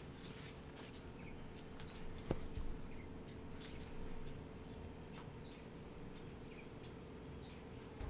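Quiet room tone: a steady low hum with faint, short chirps of small birds scattered through, and one soft knock about two seconds in.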